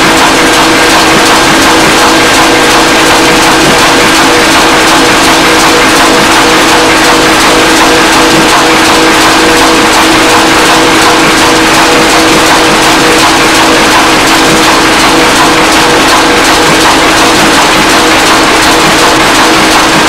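Large stationary flywheel engine powering a sawmill, running steadily: a loud continuous mechanical din with a constant hum.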